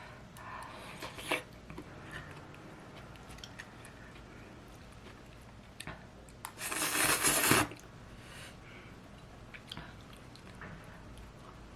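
Close-up eating sounds: quiet chewing with scattered small clicks, and one loud, noisy sound lasting about a second about two-thirds of the way through.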